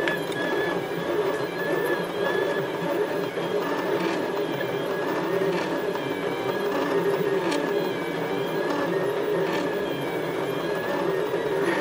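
DreamMaker OverLord Pro Plus delta 3D printer printing: a continuous whir from its motors, with tones that waver up and down as the arms move, and faint clicks every second or two.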